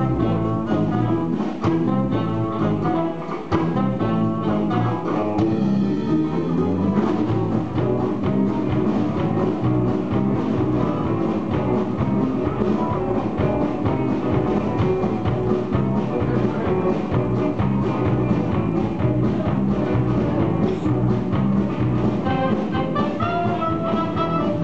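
Live band playing an instrumental passage: guitars over a drum kit keeping a steady beat.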